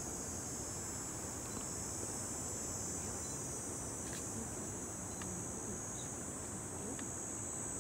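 Steady, high-pitched chorus of night insects, several even trills overlapping without a break, with a few faint clicks.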